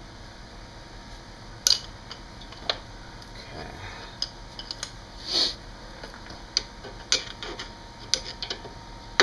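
Hand tools clinking and knocking on metal car parts: a few separate sharp knocks in the first half, then a run of smaller, quicker clicks and taps near the end.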